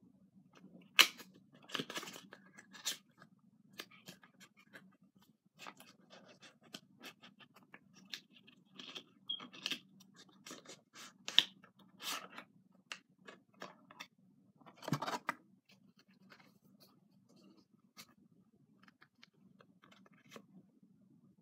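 Foil wrapper of a Pokémon trading card booster pack being torn open and crinkled by hand: an irregular run of sharp crackles and rustles, with a few louder tears. The crackling thins out in the last few seconds.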